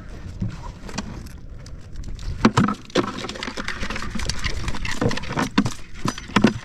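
Irregular clicks, knocks and scrapes from handling a two-ring crab net with live blue crabs in it, coming thicker after about two seconds, over wind rumbling on the microphone.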